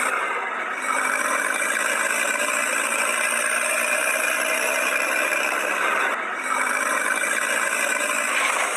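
Tractor engine running steadily, thin with no deep bass, with brief dips in level about half a second in and again near six seconds.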